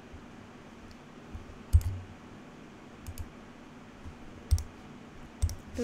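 Computer mouse clicking: about four separate sharp clicks over a faint steady room hiss, the one a little under two seconds in the loudest.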